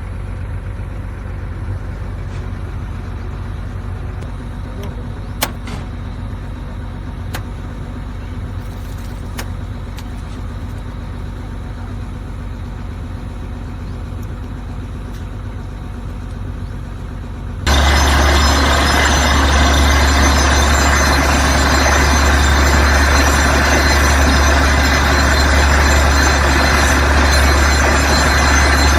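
A steady low hum with a few light clicks, then about two-thirds of the way in a small DC motor switches on suddenly and runs steadily with a loud buzzing hum.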